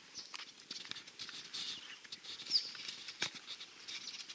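Birds chirping in short calls, mixed with scattered light clicks and footfalls on dry ground.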